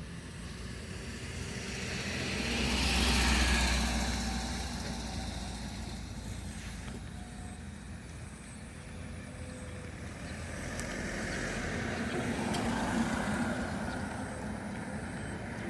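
Engine vehicles passing by, each a low rumble that swells and fades: a louder pass peaking about three seconds in and a weaker one near the end.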